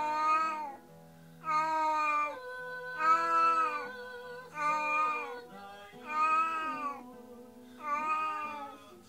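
Domestic cat meowing over and over in long, drawn-out cries, about one every second and a half. These are the plaintive calls of a cat left alone, which her owners hear as her saddest crying yet, fretting over her absent companion.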